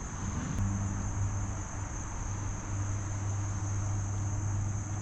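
Steady high-pitched insect buzz, a chorus of crickets or similar insects, with a low steady hum coming in about half a second in.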